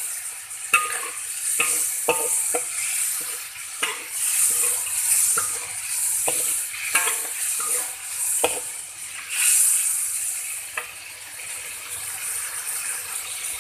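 Shrimp sizzling as it fries in a pan, stirred with a utensil that knocks and scrapes against the pan every second or so.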